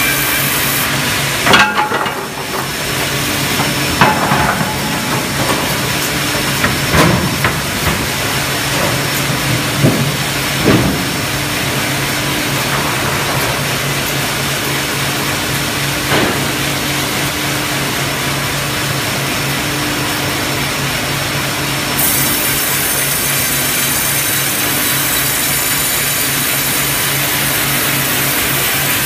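LBL Brenta log bandsaw line with its Spider hydraulic carriage running, a loud steady machine hum and hiss. It is broken by several sharp knocks and bangs during the first half as timber is clamped and handled on the carriage. The hiss gets brighter about two-thirds of the way through.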